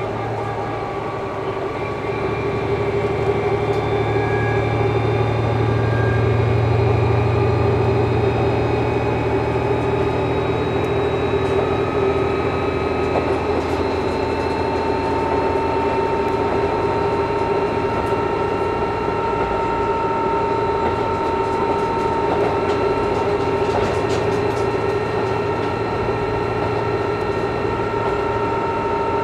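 KiHa 11-100 diesel-hydraulic railcar running between stations, heard from inside the cabin: a steady low engine drone with a few steady whining tones above it. The sound builds over the first few seconds, then holds level.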